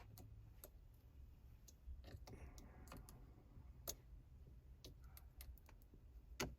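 Faint, scattered clicks of a screwdriver prying up a BMW F-series automatic shifter's plastic trim, which is held on with double-sided tape. One sharper click comes about four seconds in and another near the end.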